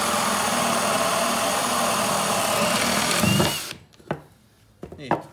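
Brushless cordless drill boring through a wooden board with a 35 mm Forstner bit: a steady motor and cutting noise, with a brief rise in pitch just before it stops about three and a half seconds in. A few light knocks follow.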